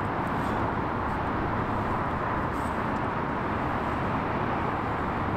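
Steady background rumble of distant road traffic, with no distinct sounds standing out.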